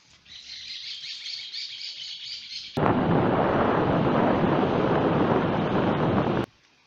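Birds chirping busily, then an abrupt cut a little under three seconds in to loud, steady surf of waves breaking on a shore, which stops just as suddenly near the end.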